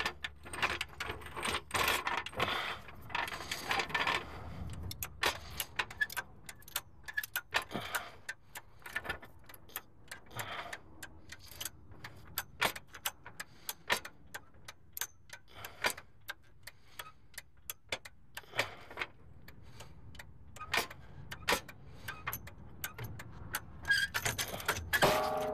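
Irregular clicks and light metallic clinks of small hand tools or parts being handled and set down, busiest in the first few seconds and again near the end.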